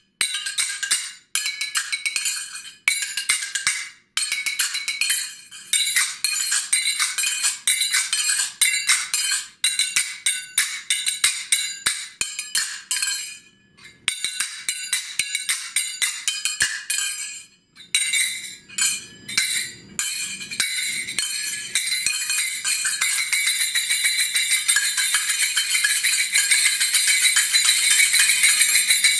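Egyptian sagat, brass finger cymbals, played in quick rhythmic patterns of bright ringing clinks, with short breaks about halfway through. For the last several seconds they run into a fast, continuous trill.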